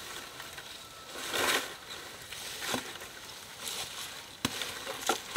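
Rustling of leafy fronds about a second in, then three sharp knocks of a short-handled hoe striking soil and roots as a plant is dug up.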